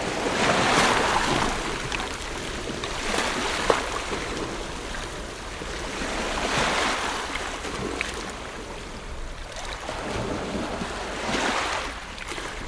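Ocean waves breaking and washing on a beach, swelling and falling back about every three to five seconds.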